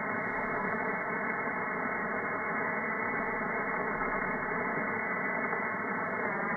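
Shortwave receiver in lower-sideband mode, tuned near the RWM time signal on 9997 kHz: steady static hiss cut off above about 2 kHz, with a few faint steady tones running through it. The time signal is weak, not super strong, under the noise.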